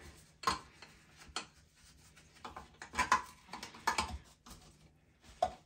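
A few irregular light clicks and clinks as the nuts on a toilet's tank-to-bowl bolts are snugged up with a plastic nut tool while the porcelain tank is steadied by hand.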